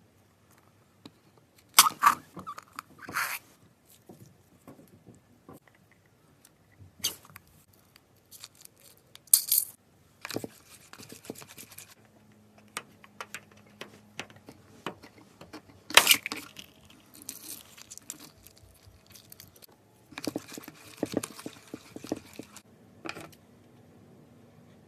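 Scissors cutting into a slime-filled stress ball. There is a handful of sharp snips, the loudest about 2 s and 16 s in, with stretches of softer handling and cutting noise between them.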